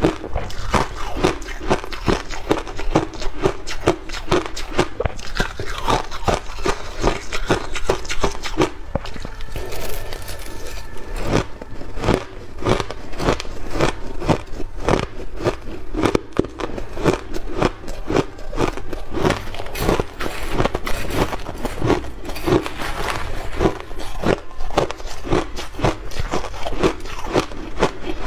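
Shaved ice being chewed close to the microphone: continuous, rapid crunching of mouthfuls of soft white ice, with the occasional scrape of a metal spoon.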